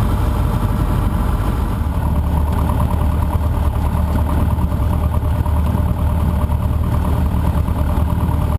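Cessna 150J's four-cylinder Continental O-200 engine and propeller running steadily with a low, even drone.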